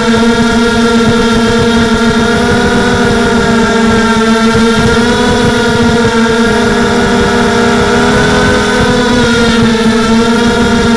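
Tarot Robocat 280 FPV quadcopter's electric motors and propellers, heard from its onboard camera, giving a loud, steady buzzing whine over a rough low rumble. The pitch dips slightly and rises again as the throttle changes.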